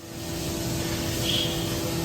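A Haas VF-2SS CNC vertical mill running: a steady machine hum with a constant tone that comes in over the first half second, and a brief higher whistle about a second in.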